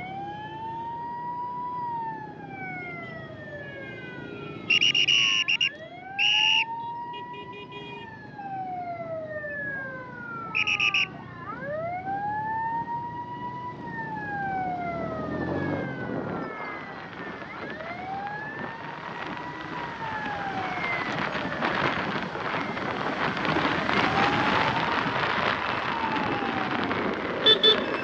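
Ambulance siren wailing, slowly rising and falling about every five and a half seconds. Short vehicle horn beeps cut in a few times, and traffic noise grows louder in the second half.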